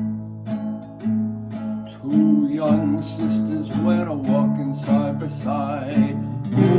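Acoustic guitar picking the instrumental introduction to a folk ballad. About two seconds in, a second melody line joins over the guitar and the music becomes fuller.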